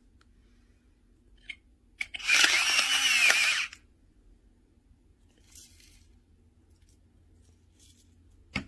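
Battery-powered electric salt and pepper grinder's small motor whirring as it grinds, for about a second and a half starting a little over two seconds in. A sharp click near the end.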